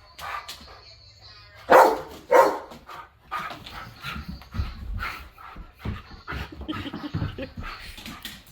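Dog barking twice, loudly, about two seconds in, followed by a run of shorter, quieter knocks and noises.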